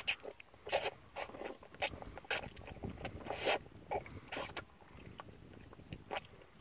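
Shire foal latched on and suckling at the mare's udder: short, irregular sucking and slurping noises roughly every half second, pausing for a moment near the end.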